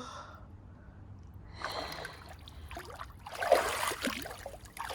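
Water splashing and trickling, building up about a second and a half in, with a sharp splash a little past the middle.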